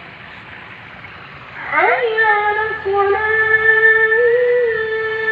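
A steady background hiss, then, a little under two seconds in, a high female singing voice slides up into one long held note, wavering slightly in pitch with small ornamental turns.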